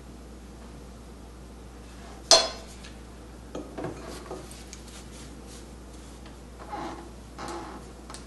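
A sharp clink of a brush against a ceramic palette dish about two seconds in, followed by a few lighter taps and, near the end, soft brushing as a wide hake flat brush is worked in ink on the dish.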